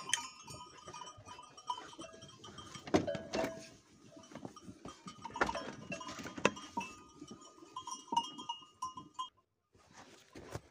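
Sheep moving about in a barn, a bell on one of them tinkling on and off among scattered knocks and rustles. The sounds fade out about nine seconds in.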